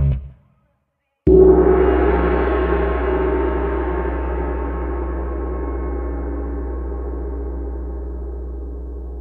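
A single struck, ringing metallic sound, gong-like, hits suddenly about a second in and then rings on, fading slowly over several seconds above a steady low drone.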